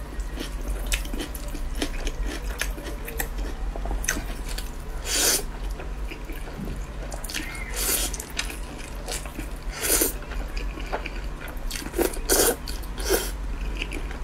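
Wet chewing and slurping of noodles: many short mouth clicks and smacks, with several louder slurps spread through, over a steady low hum.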